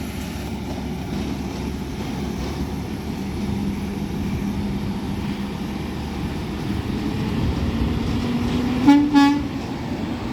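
Peterbilt 520 McNeilus ZR garbage truck's engine running, its pitch rising as it pulls away, then the truck's air horn gives a short, loud blast about nine seconds in.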